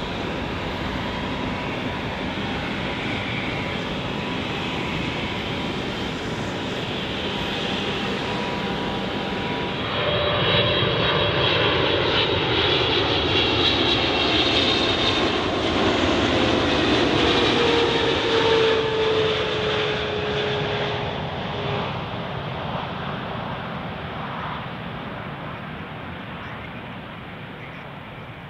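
Jet engines of a Boeing 787-9 on takeoff, a steady rush with a faint steady whine. About ten seconds in this gives way to a louder Boeing 777-200LR with GE90 engines on landing approach, its engine whine falling in pitch as it passes, then fading away.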